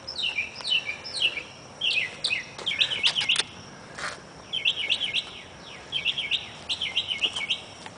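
Songbirds singing: series of quick, high, sliding notes repeated in short phrases, one after another throughout.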